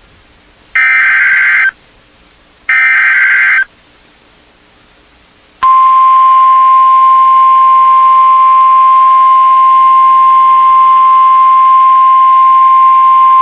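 Emergency Alert System broadcast opening: two loud one-second bursts of SAME digital header tones, a second apart. About five and a half seconds in, the steady single-pitched 1050 Hz NOAA Weather Radio warning alarm tone begins and holds.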